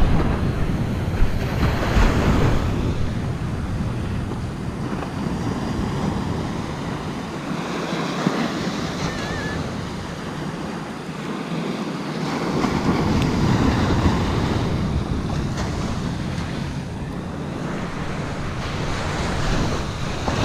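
Ocean surf breaking and washing up a sandy beach, swelling and easing in slow surges. Wind buffets the microphone with a low rumble that drops away for a few seconds in the middle.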